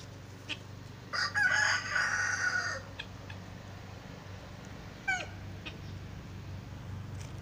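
Domestic fowl calling: one loud crow-like call lasting under two seconds, then a short falling call about two seconds later.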